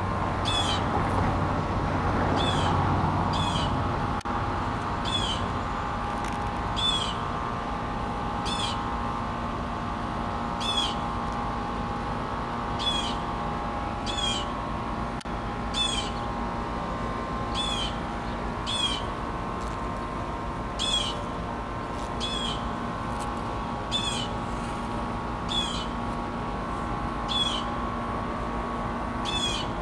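A small bird calling over and over, one short high call about every one to two seconds, over a steady low hum.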